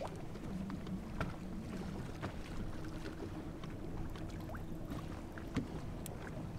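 Small waves lapping against a fishing boat's hull with light wind, over a steady low hum, with scattered faint ticks and small splashes.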